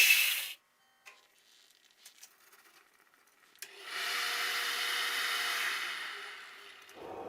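An electric power tool shuts off and stops about half a second in. A few faint clicks follow, then from about three and a half seconds in a quieter steady noisy running sound lasts about three seconds before tapering off.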